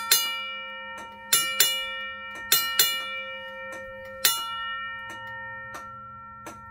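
Safetran mechanical railroad crossing bell driven by a flasher relay: its gong is struck in pairs of strokes about every 1.2 seconds, each ringing out with a metallic decay. The strokes stop a little past four seconds in and the last one rings away, with faint ticks going on underneath.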